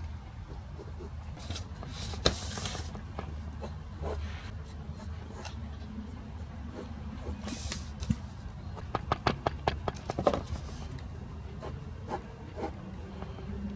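Pencil drawing on paper over a steady low hum: two brief rustles of the paper sheets being shifted, then, about two-thirds in, a quick run of short, sharp pencil strokes.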